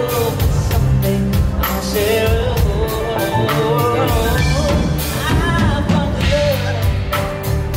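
A slow pop song: a singer's voice with vibrato over a regular drum beat and a steady bass line.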